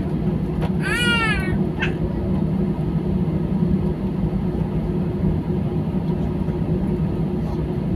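Steady hum of an airliner cabin with the engines running before takeoff. About a second in, one short, high-pitched, arching cry like a meow, with a brief fainter squeak just after it.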